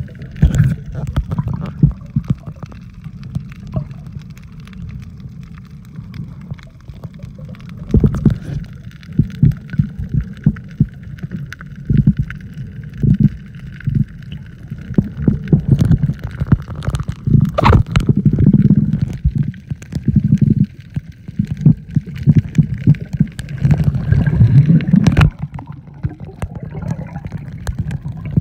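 Muffled underwater water noise heard through a submerged microphone: low, irregular thumping and gurgling of water moving against the mic.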